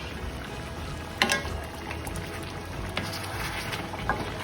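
Chicken masala frying in a pan, a steady sizzle, with a sharp clink of a utensil against the pan about a second in and lighter clicks later.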